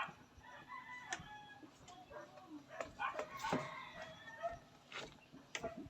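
Faint animal calls, a rooster crowing among them, the loudest call a little past the middle.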